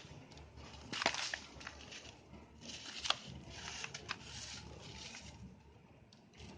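Hardened red sand-cement being crumbled, with a steady gritty crunch and sharp cracks about one second and three seconds in.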